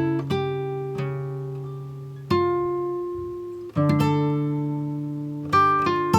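Background music of acoustic guitar: plucked chords and single notes that ring out and fade, with a fresh chord struck every one and a half to two seconds.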